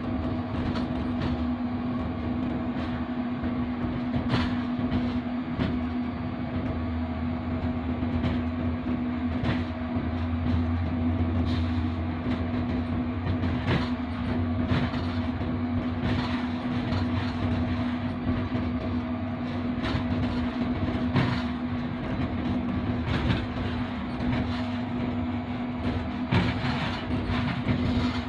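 Moving train heard from inside the cab of a GEU-40 diesel-electric locomotive: a steady engine drone with a constant hum, and scattered clicks and knocks from the wheels and rails.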